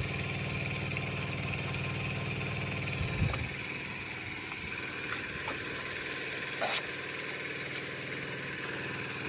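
Small engine-driven water pump running steadily. Its low hum drops away about three seconds in.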